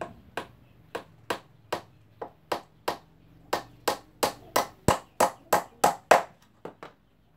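Hammer striking the wooden top panel of a small 4-inch line array speaker box: about twenty sharp blows, two or three a second, the last couple lighter before they stop near the end.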